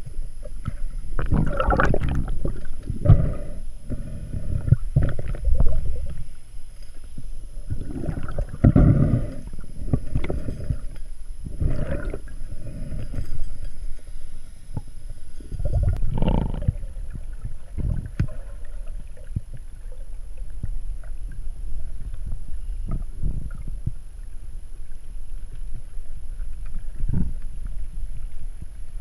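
Muffled underwater water noise: irregular surges of rushing and gurgling water against an underwater camera housing as the diver moves, heaviest in the first dozen seconds and again about halfway through, with a faint steady high whine underneath.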